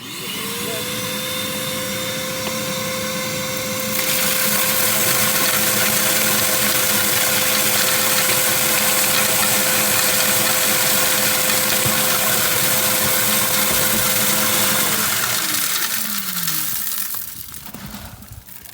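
Shop vac motor switched on and whining up to speed, sucking up bird seed through its hose into a Seed Saver separator; the rush gets louder and hissier about four seconds in. Near the end it is switched off, and the whine falls away as the motor runs down.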